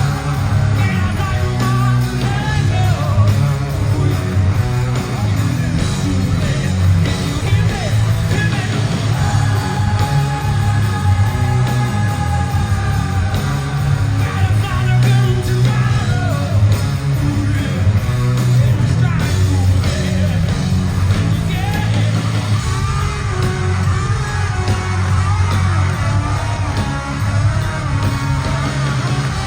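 Live rock band playing, with a vocalist singing and shouting over loud distorted electric guitar, bass and drums, heard through a crowd recording.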